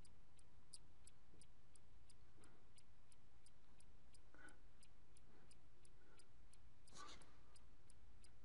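Faint, regular ticking, about three ticks a second, with a brief louder noise about seven seconds in.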